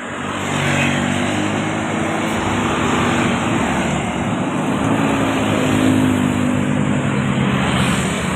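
A bus driving past close by: a loud, steady rush of engine and tyre noise that swells about half a second in and holds.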